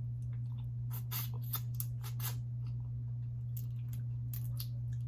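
Close-miked eating sounds: a string of irregular sharp clicks, crackles and mouth smacks, over a steady low hum.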